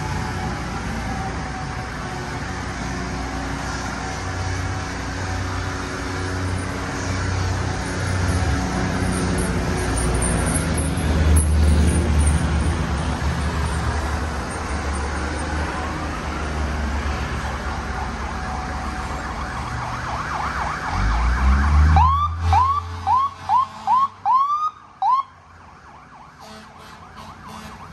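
Emergency-vehicle sirens in a parade: a siren wail winding down at the start over a steady low rumble, then, about 22 seconds in, a quick string of about seven short rising siren whoops, after which the rumble drops away.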